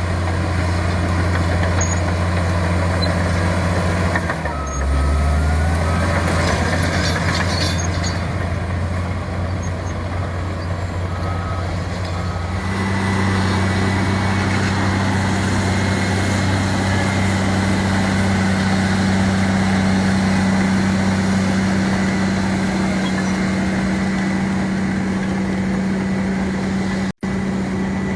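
Heavy diesel engine of earthmoving machinery running steadily. Its sound changes abruptly about halfway through, and it cuts out for an instant near the end.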